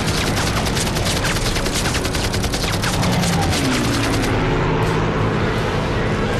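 A fusillade of rapid gunfire, many guns firing at once in a dense crackle, which stops about four seconds in. A steady low rumble continues underneath.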